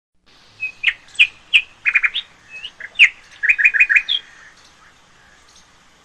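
Birds chirping: a quick run of short, sharp, high-pitched calls, some notes repeated rapidly, stopping about four seconds in.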